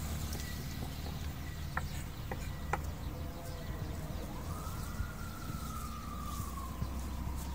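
A distant siren sounds once, its tone rising about four seconds in and then slowly falling, over a steady low rumble. A few light clicks come before it.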